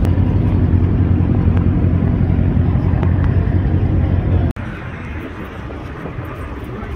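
A car engine idling with a steady low rumble, cut off abruptly about four and a half seconds in, then quieter outdoor background noise.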